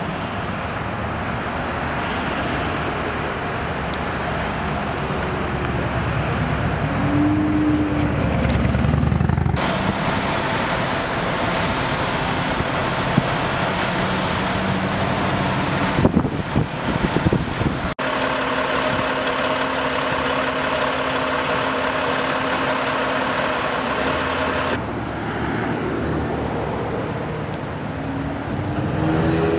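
Highway traffic noise, with vehicles passing on the freeway. The sound changes abruptly three times. After the middle, a vehicle engine idles with a steady hum for several seconds, and a few short knocks come a little before it.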